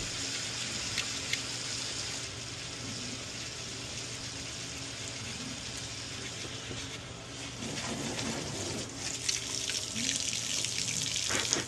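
Steady rush of running water, as from a garden hose running on a patio.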